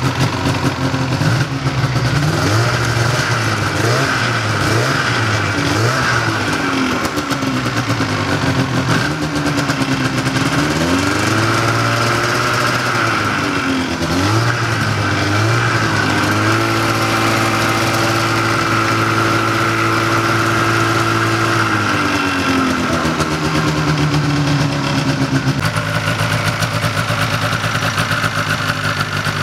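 Yamaha snowmobile two-stroke engine running on the bench, revved up and down several times, then held at a steady higher speed for several seconds before it settles back to idle near the end. It is running well after sitting, needing no repair.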